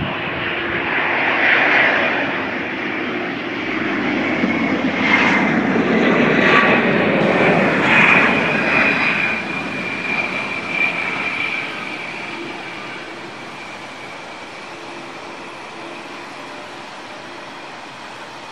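Japan Airlines Boeing 787-8's GEnx turbofan engines at takeoff power on the takeoff roll, a deep jet rush with a steady high fan whine. It is loudest in the first half and fades over the last several seconds.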